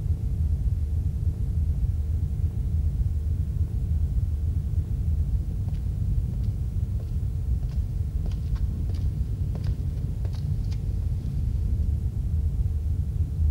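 A steady low rumble with a faint constant hum above it, and scattered faint clicks from about halfway in.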